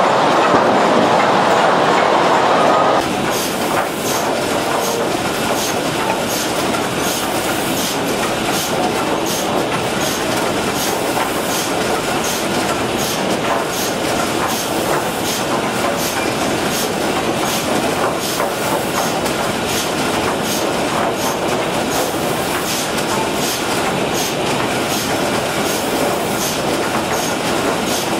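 Timber grading line in a sawmill running under production: steady machinery clatter with a regular series of knocks as boards pass through the grader. The noise drops slightly about three seconds in.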